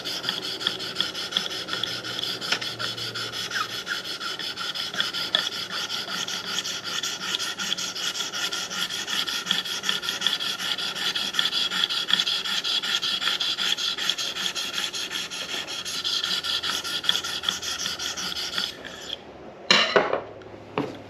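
600-grit sharpening stone on a KME guided knife sharpener stroked rapidly back and forth along a steel knife edge in a steady scraping rhythm, refining the bevel left by the 300-grit stone. The strokes stop about nineteen seconds in, followed by two sharp knocks.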